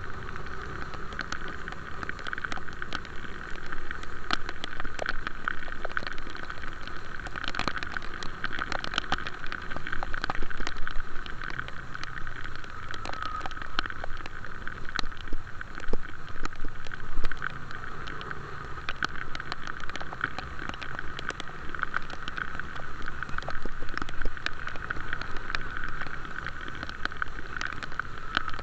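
A vehicle on the move in the rain: a steady running hum with many irregular sharp ticks, like raindrops striking close to the microphone.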